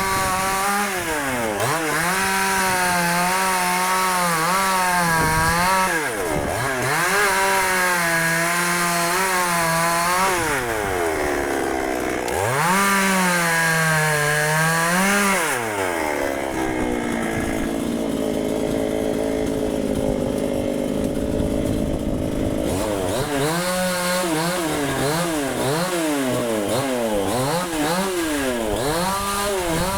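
Dnipro-M petrol chainsaw's two-stroke engine at high revs sawing walnut wood, its pitch repeatedly sagging and recovering as the chain bites. Past the middle it drops to a lower, quieter running speed for several seconds, then revs up and cuts again.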